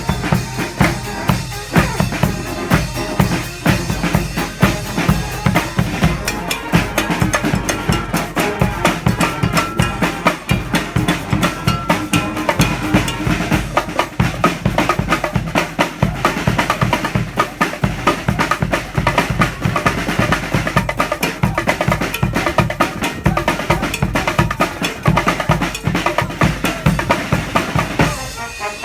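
Street marching band's drum section playing a drum break: bass drum and snare drums keep a fast, steady beat of strikes, with almost no horns sounding.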